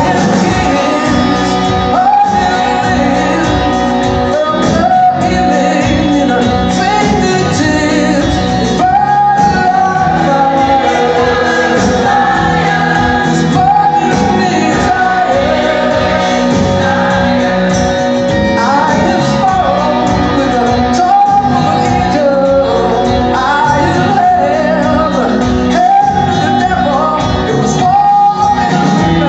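A live band and a large choir performing a song, with the choir's sustained sung notes over the band's accompaniment.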